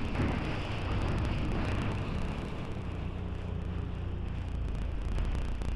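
A boat engine running with a steady low rumble, over a haze of wind and water noise.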